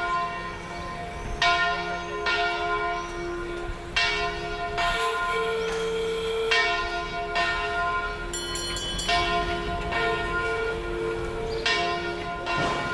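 Cathedral bells ringing: several bells of different pitch struck one after another, roughly once a second, each note ringing on under the next.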